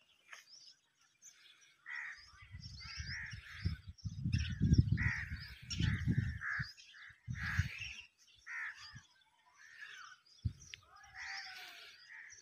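Birds calling repeatedly, many short calls that rise and fall in pitch, over irregular bursts of low rumble on the microphone. The rumble is loudest from about two to eight seconds in, and comes back briefly near the end.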